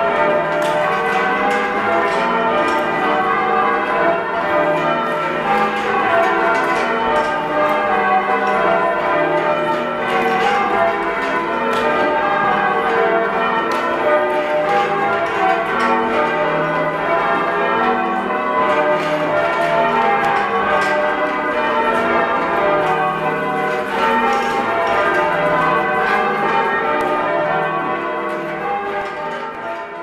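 Ring of church bells in a heavy, oddstruck Thomas Rudhall ring with a tenor in D, being change rung with full-circle strokes in a steady, even rhythm, heard from the ringing chamber below the bells. The sound gets quieter near the end.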